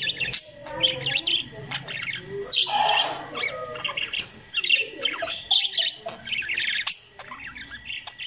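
Several parakeets chirping and warbling together: a busy, overlapping chatter of short high chirps, with a few sharp clicks among them.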